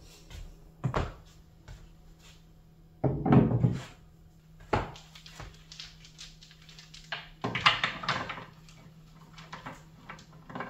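Decor items being set down and shifted on a bookshelf: a few separate knocks and thunks, the loudest a heavy thunk about three seconds in, and a longer clatter of handling around eight seconds in.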